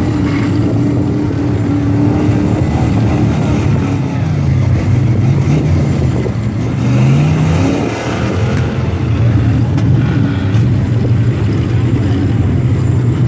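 Lifted pickup mud truck's engine working hard as the truck wades through deep water, its pitch climbing and falling a few times in the middle as the throttle goes up and down.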